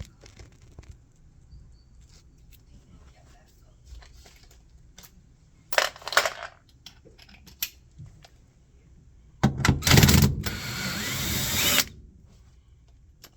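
Power drill-driver running in short bursts, with a brief burst about six seconds in and a longer run of about two seconds near the end that stops abruptly, among light tool clicks and clatter.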